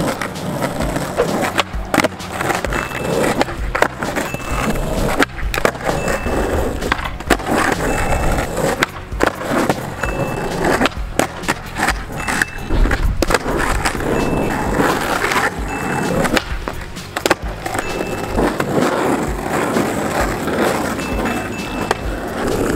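Skateboard wheels rolling on asphalt, broken by repeated sharp clacks of the board popping and landing over a series of tricks. Music plays underneath.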